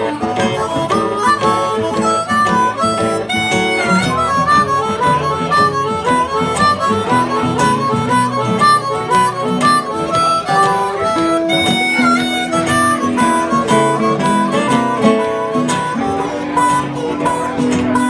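Harmonica playing a solo line of quick runs of notes over two acoustic guitars accompanying.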